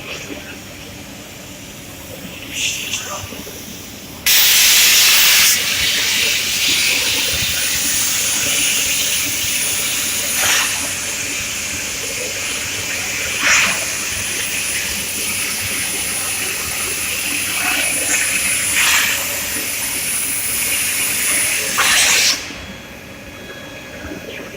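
Hypertherm MAXPRO200 plasma arc on a CNC cutting table cutting metal: it fires abruptly about four seconds in, loudest for the first second, then holds a steady loud hiss with a thin high whistle and a few brief louder swells, and cuts off sharply near the end.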